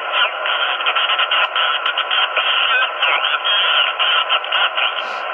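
Single-sideband receiver audio from a Yaesu FT-891 HF transceiver: steady static hiss, with a weak station's voice fading in and out under it (QSB). There is a short scratchy noise near the end.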